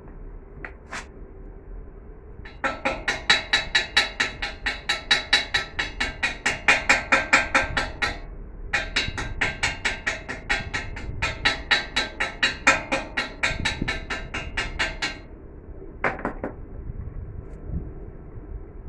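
Rapid hammer blows on a steel piece, about five a second, each ringing with a metallic tone. There are two long runs of blows with a brief pause between them.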